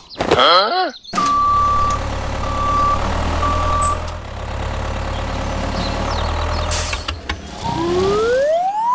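A truck-like engine running steadily, with three reversing-style beeps about a second apart early on. A wobbling whistle comes just before the engine starts, and a rising whistle near the end.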